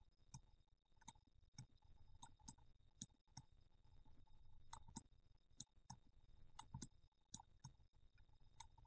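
Faint, irregular computer mouse clicks, sometimes in quick pairs, over near-silent room tone.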